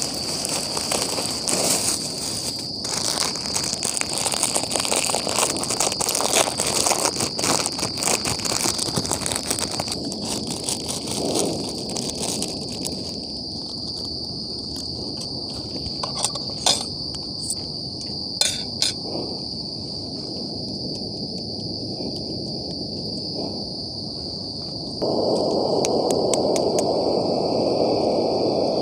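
Insects chirring in a steady high drone, with crinkling and clicking from plastic food packets being handled through the first dozen seconds and a few sharp clicks later. Near the end a louder steady rushing noise sets in suddenly.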